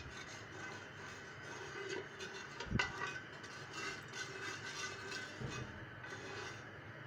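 Faint crackle of cooking oil heating in an aluminium pressure cooker as a wooden spoon is stirred through it, with a single soft knock about three seconds in and a lighter one later.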